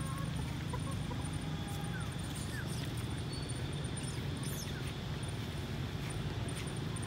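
Steady outdoor background noise with a low rumble, a few faint short chirping calls, and a thin, broken high-pitched whine.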